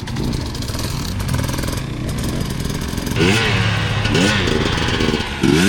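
Dirt bike engine running, then revving up and down several times from about three seconds in.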